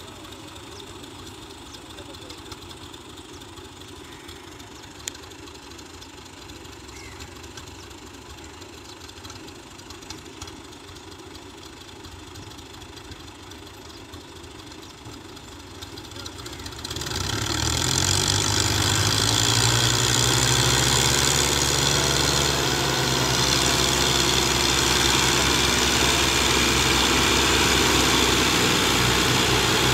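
Diesel tractor engines running under load while two tractors coupled in tandem pull a trolley heaped with sand. The engine sound is faint and distant at first, then about halfway through it becomes loud and close, rises briefly in pitch, and runs on steadily.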